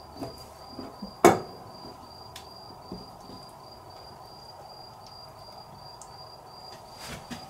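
A cricket chirps in an even, high-pitched pulse a few times a second throughout. About a second in, a kitchen knife knocks once sharply on a plastic cutting board, the loudest sound. A few lighter knocks follow as the squid pieces are handled.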